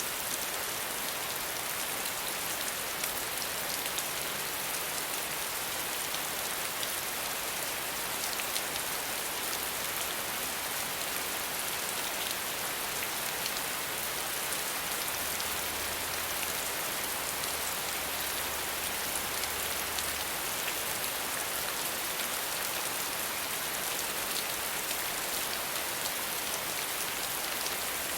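Steady rain falling on a surface, with scattered individual drops ticking through a constant hiss.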